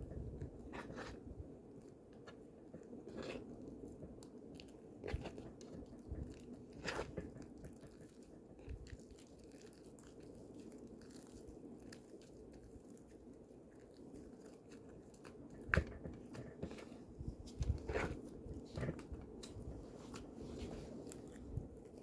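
White fluffy slime being mixed and kneaded by hand, giving scattered sticky clicks and crackles that come a little thicker after about fifteen seconds, over a faint steady hum.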